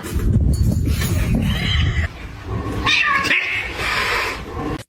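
A domestic cat yowling in long, drawn-out cries, one about a second and a half in and a longer one from about three seconds, over a low rumbling noise that is loudest in the first two seconds.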